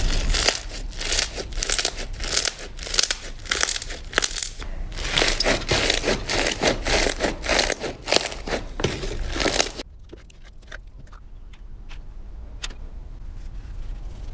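Slime being squeezed and worked by hand, a dense run of crackles and crinkles for about ten seconds, then suddenly fainter, scattered clicks.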